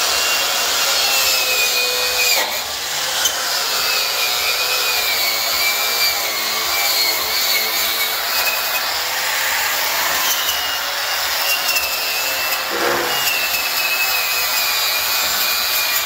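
Hand-held power grinder with an abrasive disc running against a steel truck frame rail, stripping rust and flaking paint down to bare metal. A loud, steady high-pitched whine with grinding noise, its pitch wavering slightly as the disc is pressed and moved, easing off briefly a couple of times.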